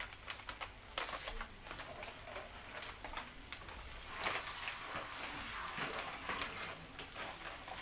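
Chicken heart skewers sizzling over a charcoal grill, with a steady crackle and many small pops.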